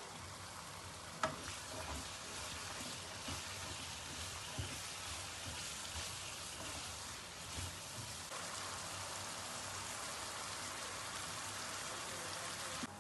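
Diced potatoes frying and sizzling in a nonstick wok, stirred with a wooden spatula that knocks against the pan, the sharpest knock about a second in. The stirring stops after about eight seconds, leaving a steady sizzle.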